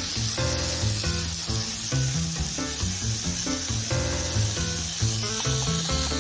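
Sliced chicken breast and snow peas sizzling in a frying pan, a steady hiss of frying, with background music playing over it.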